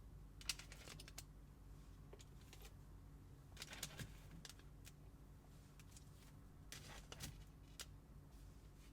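Faint, scattered light clicks and rustles of small plastic kit parts and packets being handled, in a few short clusters over a low steady hum.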